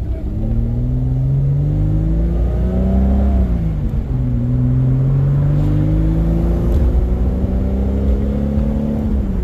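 Car engine pulling up through the gears: its pitch climbs, drops at an upshift about three and a half seconds in, then climbs again more slowly before dropping at another shift near the end.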